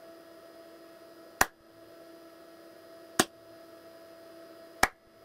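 Three sharp single hand claps, spaced about a second and a half to two seconds apart, over a faint steady hum.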